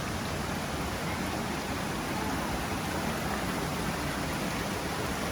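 Swollen creek water rushing steadily, an even roar with a low rumble underneath.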